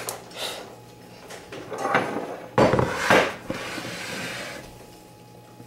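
Items handled on a kitchen counter: a few light knocks, then a louder clatter and scrape about halfway through, followed by a soft fading hiss.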